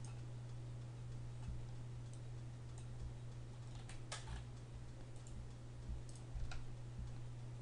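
A handful of faint, scattered computer mouse clicks, over a steady low hum.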